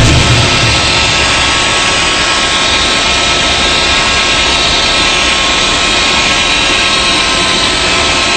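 Electric drill running a paddle mixer steadily in a bucket of thick grey coating, a continuous motor whine with churning.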